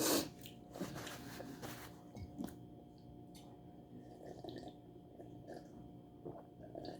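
Close-up eating sounds of head-on shrimp in butter sauce: wet chewing and mouth smacks. A louder wet sound comes right at the start, followed by soft, scattered clicks and smacks.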